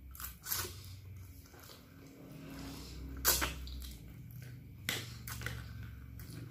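Close-miked chewing of a mouthful of fried instant noodles (Indomie mie goreng), with a few short sharp crunches: about half a second in, around three seconds in, and twice near five seconds. A steady low hum runs underneath.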